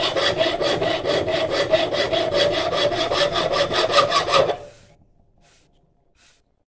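Hand file rasping along the steel blade of a falchion clamped in a vise, in quick, even strokes about five a second. The filing stops abruptly about four and a half seconds in, followed by two faint short scrapes.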